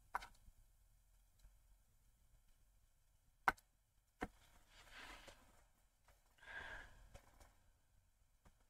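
Near silence, broken by a few sharp taps of a stylus on a tablet screen, the loudest about three and a half seconds in, and two soft breathy sighs just after the middle.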